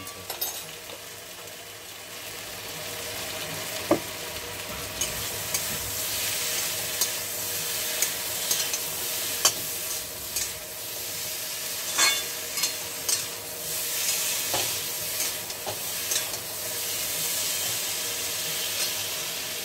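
Vegetables frying in oil in a metal kadai, a steady sizzle, while a metal spatula stirs them and scrapes and knocks against the pan with sharp clicks now and then.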